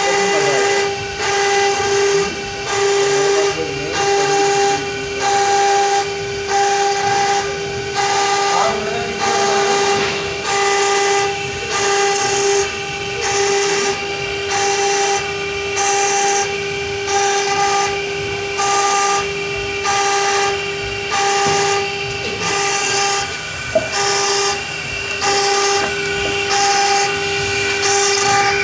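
CNC stone router spindle engraving a wet stone slab: a steady high whine from the spindle, with a gritty grinding that swells about once a second as the bit works the stone.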